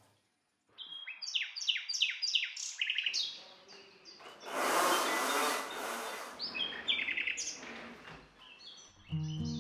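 Birds chirping and calling in quick runs of short, high, falling whistles. About four and a half seconds in, a burst of rustling noise lasts a second or so, then the chirping goes on.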